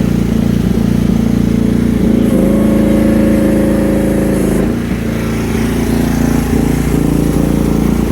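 Rippa R10 mini excavator's Briggs & Stratton 13.5 HP engine running steadily. About two seconds in its note rises and gets louder, then drops back a little past halfway, with a few light knocks throughout.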